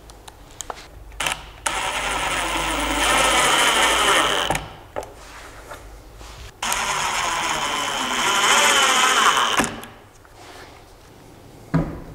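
Cordless drill/driver running in two bursts of about three seconds each, with a steady whine and a wavering motor pitch, driving into the carpeted MDF speaker box around the speaker terminal cup. Small handling clicks come before and between the runs.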